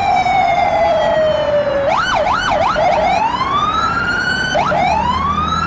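Police car siren wailing. It opens with a slowly falling tone, swings quickly up and down about two seconds in, then sweeps upward in long rising wails.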